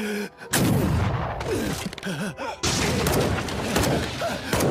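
Anime fight sound effects: a run of heavy crashing impacts as a fighter is struck and hurled across a cracked stone floor. It starts about half a second in, dips briefly a little past halfway, then comes back as loud as before.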